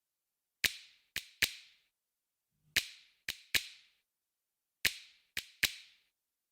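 Sharp percussive hits in a repeating rhythm: three groups of three strikes, each group about two seconds after the last. Each strike has a short echoing tail, and there is silence between the groups.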